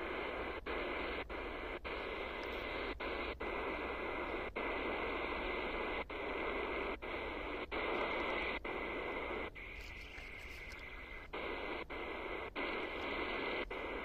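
Medium-wave static hissing from a portable radio receiver's speaker as it is tuned up the band in 9 kHz steps. The hiss cuts out briefly at each of about fifteen tuning steps, and a faint steady whistle runs under it. The hiss drops lower for a couple of seconds near the middle.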